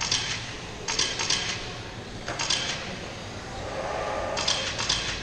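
RC Formula 1 race cars passing on the carpet track, heard as four short rattling bursts of tyre and drivetrain noise about a second or two apart, with a steadier hum swelling near the end as a pack goes by.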